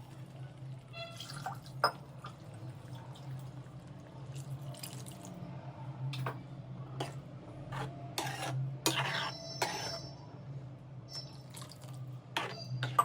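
Water being poured into a pan of brinjal masala curry and dripping, with scattered clicks and knocks of a utensil against the pan, over a steady low hum.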